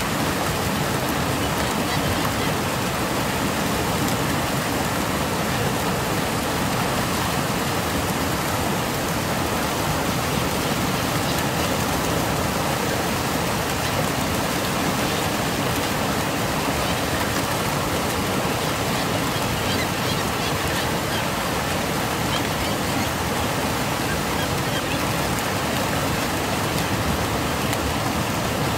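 Turbulent white water rushing and churning in a steady roar-free wash of noise, even throughout with no distinct splashes standing out.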